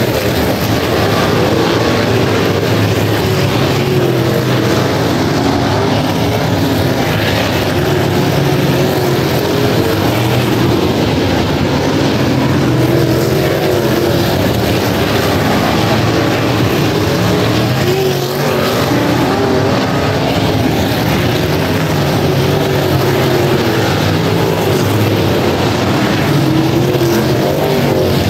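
A pack of wingless super sportsman sprint cars racing on a dirt oval, their small-block V8 engines running loud and without a break. Several engine notes overlap, their pitch rising and falling as cars lift into the turn and accelerate off it.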